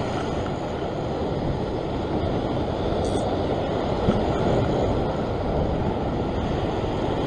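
Sea surf washing and breaking against a rock ledge: a steady rush of water, with wind on the microphone.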